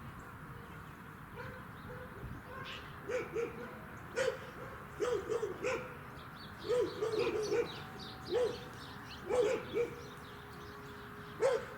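An animal calling in short, repeated bouts of quick notes, each bout under a second, coming about every second or so.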